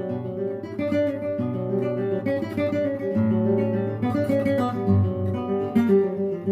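Acoustic guitar music: plucked and strummed guitar notes over a steady low bass line.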